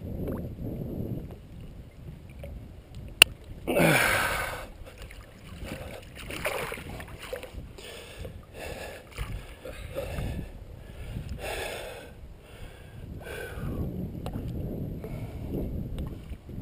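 Water sloshing and splashing around a landing net held in the water beside a boat while a fish is handled in it, in a run of short splashes. A single sharp click sounds about three seconds in.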